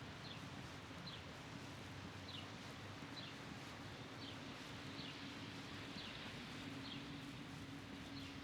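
A bird repeating a short, high, falling call about once a second, over a steady low hum and outdoor background noise.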